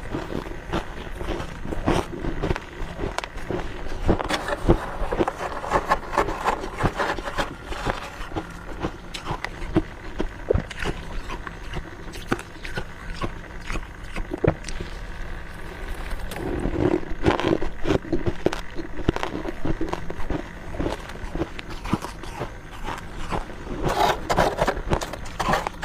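A person biting and chewing crunchy freezer frost close to the microphone: a steady run of crisp crunches and scrapes, denser in a few stretches.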